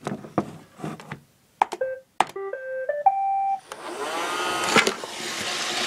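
Roomba 650 robot vacuum starting a cleaning run: a short tune of beeps stepping in pitch, then its vacuum motor and brushes spin up with a rising whine and run steadily. It is working again with its newly fitted brush module.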